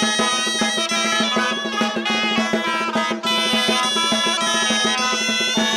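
Live rumba band playing an instrumental passage: a sustained held note over a quick, steady percussion beat.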